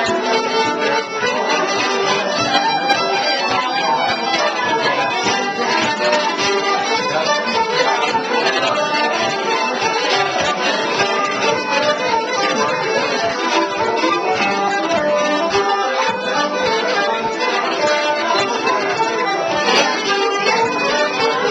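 A small band playing a traditional instrumental tune live.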